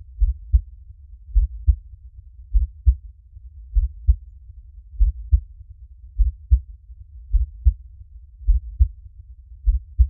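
Slow, steady heartbeat: deep double thumps (lub-dub) repeating evenly about once every 1.2 seconds.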